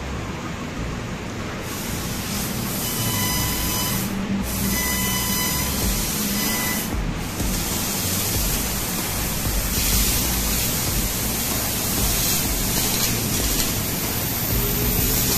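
1.5 kW Senfeng fiber laser cutting 13 mm steel plate: a steady loud hiss of assist gas and the cut starting about two seconds in, briefly thinning twice, over a low machine hum.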